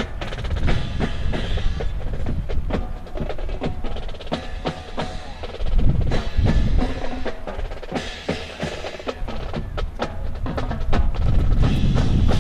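Drum-led percussion playing continuously, with many sharp wooden clacks over a steady low drum beat.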